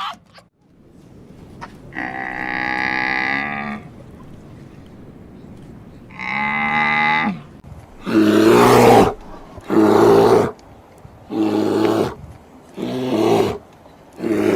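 Animal calls: two drawn-out, pitched calls, then a series of five loud, rough calls about one and a half seconds apart.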